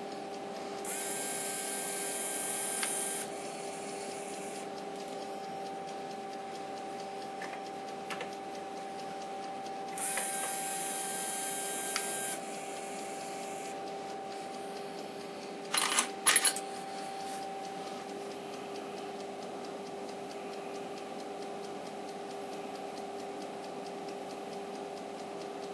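Emco Compact 5 CNC lathe humming steadily while powered on. Twice, its stepper-motor drive whirs for about two seconds: once near the start and again about ten seconds in, as the slide drives on and back off. About sixteen seconds in come two sharp clicks, the loudest sounds.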